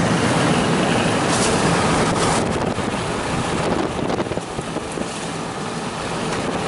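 Steady road and wind noise of a vehicle being driven, with a low engine hum underneath.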